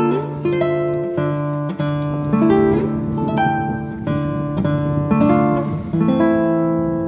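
Instrumental music on acoustic guitar: single plucked notes picking out a melody over held bass notes, each new note starting about every half second to a second.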